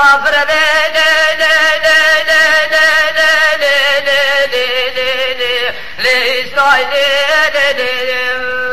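A man sings a Kurdish dengbêj song, drawing out long, wavering notes with ornamented turns. The singing breaks briefly about two-thirds through, then ends on a long held note.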